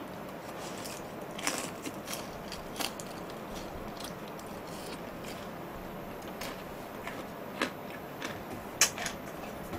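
A man chewing a mouthful of food close to the microphone: quiet chewing with scattered short clicks and smacks, the sharpest two near the end.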